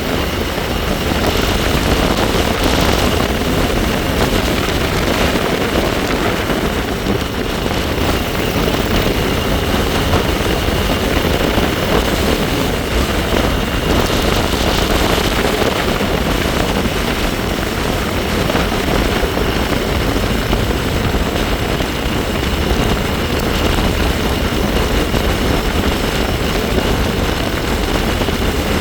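Wind rushing over the microphone on a moving bike, with a faint steady high whine from the bike under the wind noise.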